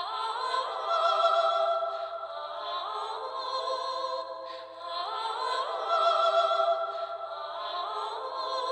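Soft, slow music: several sustained notes layered together, gliding from one pitch to the next and swelling twice.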